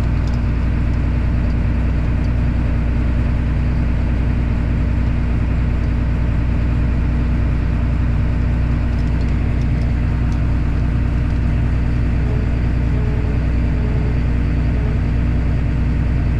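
Tractor engine running steadily at raised RPM, driving a grain cart's unloading auger through the PTO as it unloads corn.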